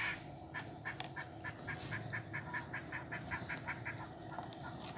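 A faint, rapid series of short animal calls, about six a second, stopping a little before the end.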